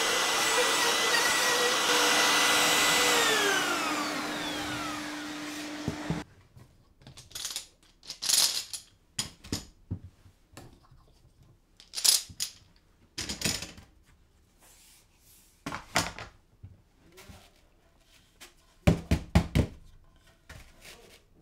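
Makita 18-volt cordless router running steadily, then switched off about three seconds in, its whine falling as it spins down, while the dust-extraction vacuum on its hose runs on and cuts off suddenly about six seconds in. After that, scattered knocks and clatters of wooden jig boards being handled.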